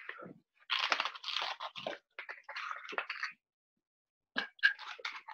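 Ice cubes crunching and clattering as they are added to a cocktail shaker, heard over a video call. The rattle lasts about two and a half seconds and is followed by a few sharp clicks near the end.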